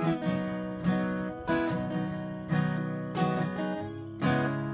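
Acoustic guitar strumming chords, each strum rising sharply and fading before the next, with the chords changing as it goes.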